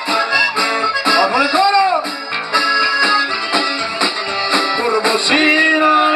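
Live band music: a drum kit keeping a steady beat under guitars and a lead melody.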